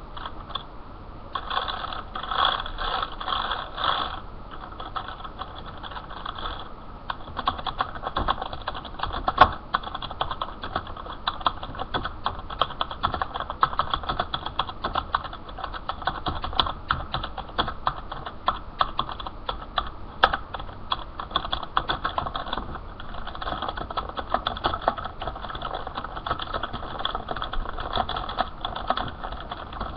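Continuous typing on a computer keyboard: a dense, uneven stream of key clicks with a few harder single strikes. Recorded through a webcam microphone, so the clicks have no high treble.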